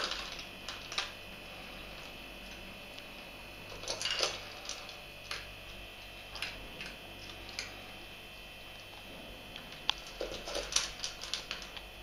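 Abyssinian cat eating dry kibble from a bowl: sharp crunches and clicks of kibble, coming in clusters with short pauses between.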